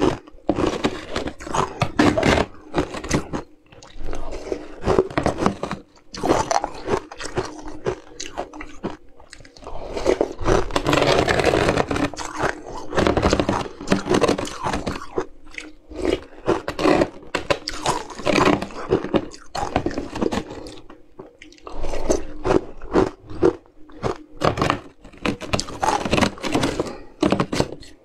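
Ice being crunched between the teeth in quick, irregular bites, and a metal spoon scraping and digging into a plastic tub of frozen ice. A denser run of continuous scraping and crunching comes around the middle.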